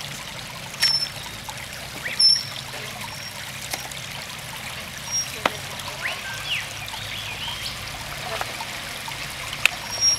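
Jeep Wrangler crawling down a wet, rutted dirt track: a low, steady engine hum under trickling water, with a few sharp knocks as the tyres work over rocks and ruts. Short high chirps sound now and then.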